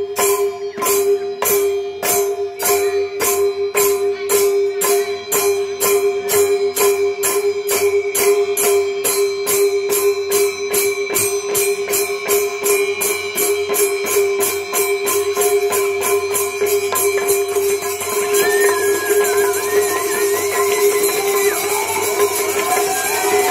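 Barrel drums and hand cymbals of a Manipuri pung cholom ensemble beating a rhythm that quickens from about two strokes a second to a fast roll, over a steady held tone. Near the end a wavering higher melody joins in.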